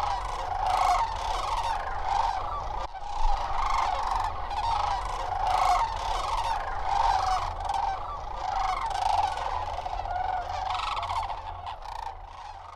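A large flock of sandhill cranes calling, with many calls overlapping into a continuous chorus that fades out near the end.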